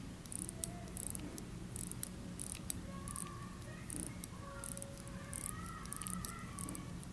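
Crown of a 1938 Hamilton Scott wristwatch with a 987A movement being hand-wound: irregular bursts of fine, rapid ratchet clicks as the mainspring is wound up.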